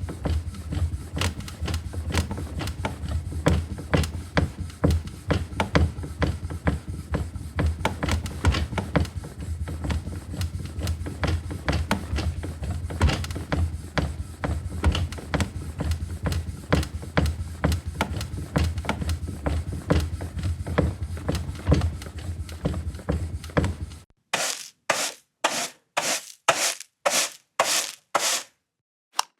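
Household objects being handled: a long run of irregular clicks and knocks over a steady low hum, then, after a sudden change, about nine separate rubbing strokes at roughly two a second.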